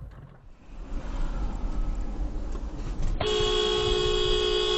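Low rumble of a car driving, then a car horn sounding in one long, steady blast for about a second and a half near the end, as another car slides across the road in front.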